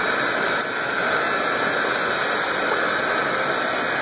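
Steady rush of running water in a goldfish pond.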